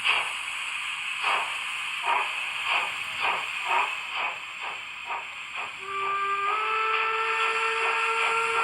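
Digital sound decoder in a model BR 44 steam locomotive playing the Henning sound set: steam exhaust chuffs quicken as the engine gets under way, then a long steam whistle blast starts about six seconds in, stepping up slightly in pitch after a moment and holding.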